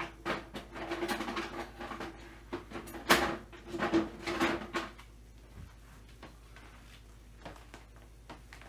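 Clattering and knocking of small parts and tools being handled on a workbench for about five seconds, with one sharper knock about three seconds in, then only a few faint clicks.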